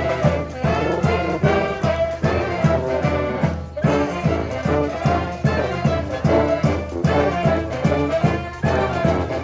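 Street brass band playing an instrumental passage live, with brass horns over a steady, even drum beat.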